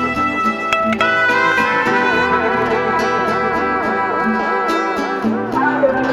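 Instrumental background music with guitar, with a wavering held melody through the middle.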